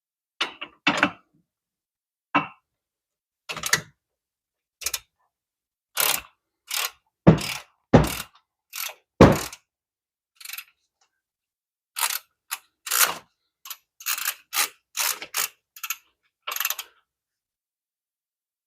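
Hand socket ratchet clicking in short, irregular bursts as bolts are run in, with a few heavier metal clanks.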